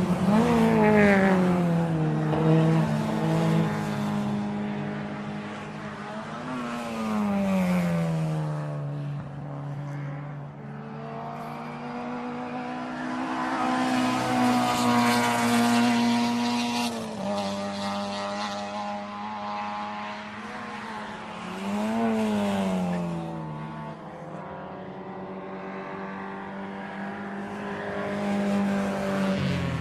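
Lamborghini sports car engine revving, its pitch climbing and falling in several swells. The longest, highest stretch comes about halfway through, and the pitch drops suddenly about two-thirds of the way in.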